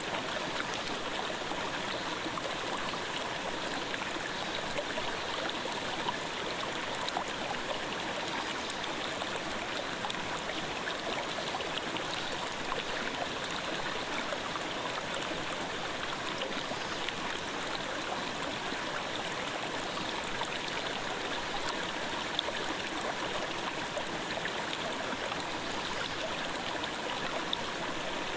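Clear mountain stream flowing in a steady babble of water, with fine trickling ticks and no change throughout.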